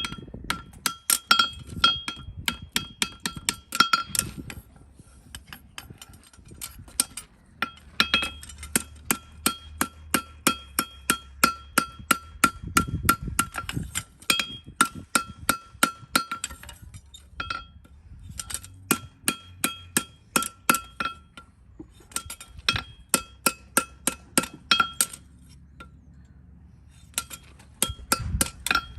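Farrier's hammer striking a steel horseshoe in quick runs of about three blows a second. Each blow rings brightly, and short pauses fall between the runs.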